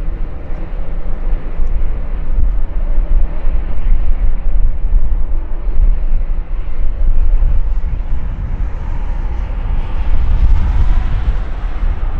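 Jet noise from a landing Airbus A350-900's twin Rolls-Royce Trent XWB engines: a loud, steady rumble, with a whine in it growing stronger about nine seconds in.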